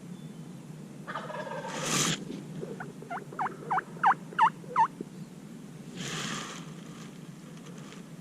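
Wild turkey calling: a gobble about a second in, then a run of seven evenly spaced yelps that grow louder.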